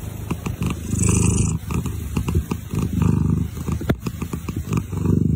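A domestic cat purring: a low, fast rumble that rises and falls in a few long swells.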